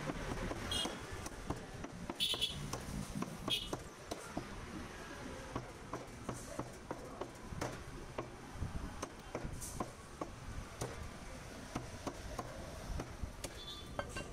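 Meat cleaver chopping goat head meat and bone on a wooden chopping block: a run of short, sharp chops, about one or two a second.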